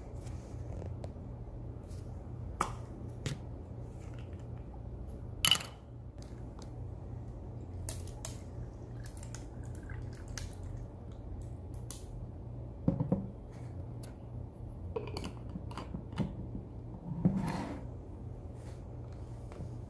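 Latte poured from a bottle over ice into a plastic cup, with scattered sharp clicks and knocks of ice and a metal straw against the cup. The loudest click comes about five seconds in, with two more clusters later. A steady low hum runs underneath.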